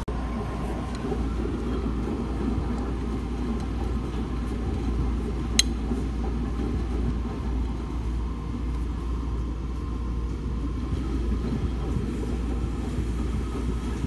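Commercial laundrette washing machines and tumble dryers running with a steady low rumble. One sharp click comes about five and a half seconds in.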